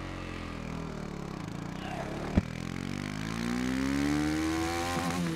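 KTM 250 Duke's single-cylinder engine pulling the bike along. It runs steady at first, there is a sharp click a little over two seconds in, then the revs climb for about three seconds and drop suddenly near the end as the rider shifts up a gear.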